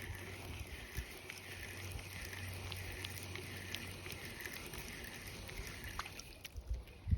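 Fishing reel being cranked to retrieve a cast lure: a rhythmic whir, about two handle turns a second, that stops about six and a half seconds in. A steady low hum runs underneath.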